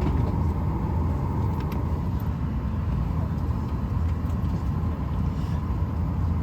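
Steady airliner cabin noise: a constant low rumble from the engines and air system with a steady hum on top.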